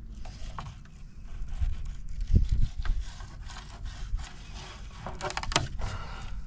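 Fillet knife slicing and scraping along a striped bass fillet on a plastic fillet table, in short scrapes and ticks over a low rumble, with a dull low thump about two and a half seconds in.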